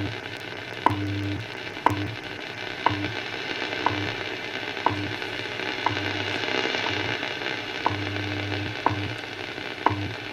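Hammarlund HQ-100 tube shortwave receiver playing a time-signal station: a sharp tick once a second over steady static hiss, with a low hum that switches on and off in pieces of different lengths between the ticks.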